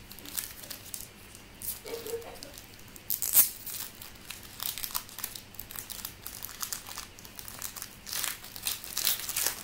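Trading cards and their foil pack wrapper being handled: a run of crinkling and small crackles, with one sharper crackle about three and a half seconds in.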